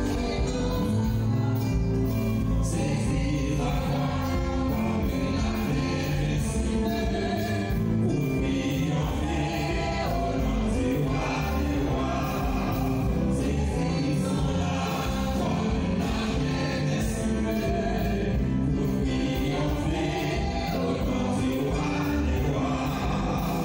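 Gospel worship song: a choir singing over instrumental accompaniment with a steady beat.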